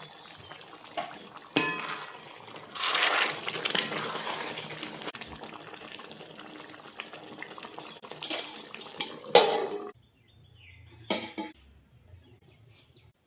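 Kitchen cooking sounds: a utensil knocking against a pot, a couple of seconds of splashing liquid, and a sharp clatter about nine seconds in. After that it goes quiet apart from one more knock.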